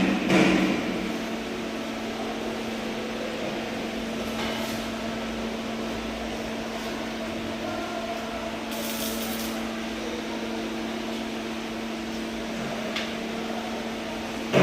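Arc welding: a steady electrical hum from the welding machine with an even hiss over it, holding level for over ten seconds.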